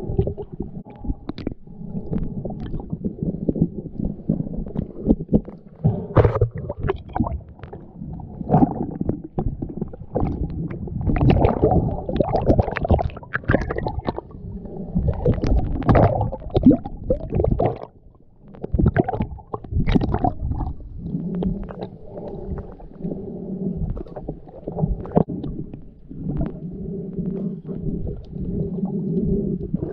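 Muffled underwater rumble and gurgling of water heard through a camera's waterproof housing, with many short clicks and knocks scattered through it and a brief lull about two-thirds of the way in.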